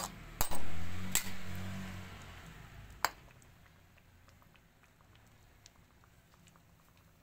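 A metal spatula clinking against a cooking pan of sardines in broth, four sharp clinks in the first three seconds. A low rumbling noise swells in the first second and fades out, and faint light ticks follow.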